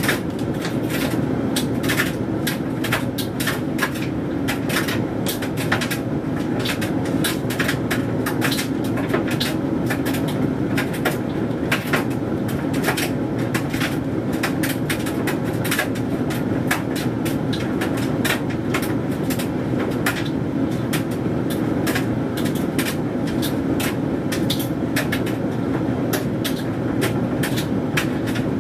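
Hoover Dynamic Mega condenser tumble dryer running mid-cycle: a steady motor-and-drum hum with frequent irregular clicks and taps as the load of synthetics tumbles in the drum.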